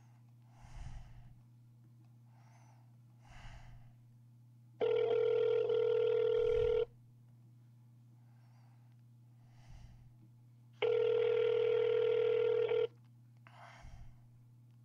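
Telephone ringback tone heard down the line while the call is being transferred: two rings, each about two seconds long and about four seconds apart, the first coming about five seconds in. A steady low line hum and a few faint short noises lie between the rings.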